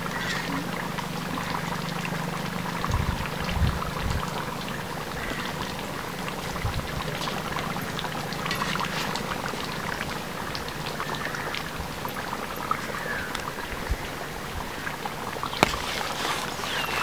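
Thick curry bubbling and popping in a large kadai over a wood fire, a steady patter of small pops. A few faint bird chirps and one sharp click near the end.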